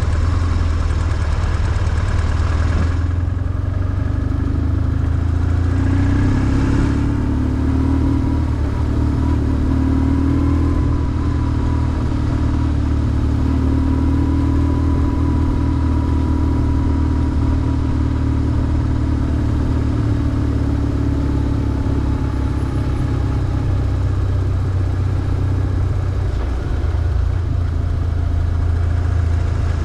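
BMW R1150GS flat-twin boxer engine running steadily while the motorcycle is ridden, its pitch drifting gently up and down with no hard revving.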